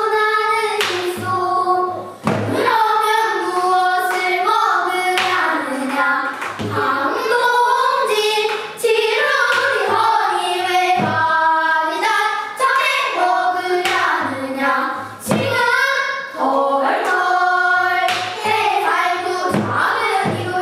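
A group of children singing pansori together in unison, the voices holding and bending long notes, with sharp drum strokes every second or two marking the rhythm.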